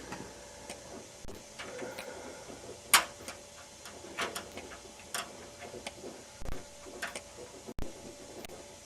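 Irregular light clicks and taps of LED tester probes being touched to the contacts of a TV backlight LED strip, the loudest about three seconds in, over a faint steady tone.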